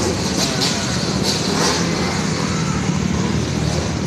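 Several dirt bike engines running and revving at once, one carrying a rider through a wheelie.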